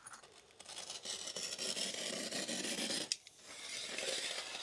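Utility knife slicing through the backing of artificial turf, a scratchy rasping cut in two long strokes with a short break between them about three seconds in.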